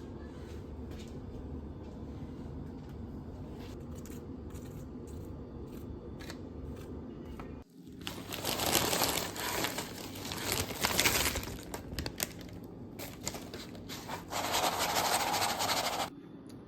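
A steady low hum with a few faint clicks, then, after a sudden change about halfway in, loud crinkling and rustling of plastic food packaging being handled.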